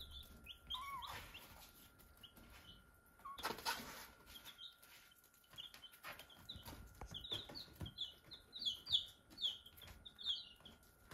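Baby chicks peeping: short high notes in quick runs, thickest in the second half. A brief rustling noise about three and a half seconds in.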